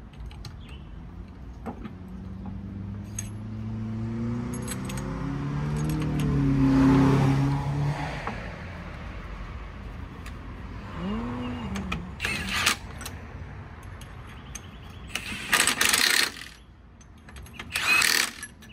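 A vehicle engine rising in pitch and getting louder to a peak about seven seconds in, then fading away. Later come a few short, loud, hissing bursts, the longest lasting about a second.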